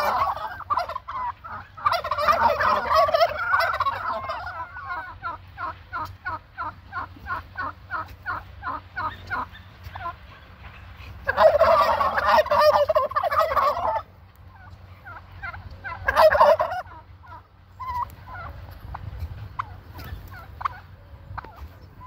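A flock of domestic turkeys gobbling in loud, dense bursts, about two seconds in, again for a few seconds near the middle, and briefly a little later. Between the bursts comes a quick regular series of short calls, and near the end only scattered calls.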